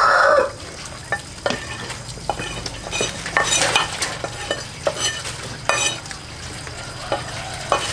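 A utensil stirring and scraping food in a frying pan, with irregular clinks against the pan over a low sizzle. A rooster's crow cuts off about half a second in.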